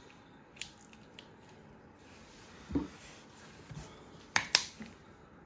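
Quiet kitchen handling sounds as lettuce is laid on a burger bun on a wooden chopping board: soft rustles and a few light clicks, with two sharp clicks close together a little over four seconds in.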